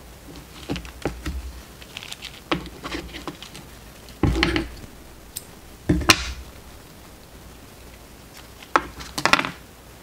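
Plastic floss bobbins clicking and clattering against each other and the wooden table as a bundle of embroidery thread is handled and set down. There are small clicks early on and louder knocks about four, six and nine seconds in.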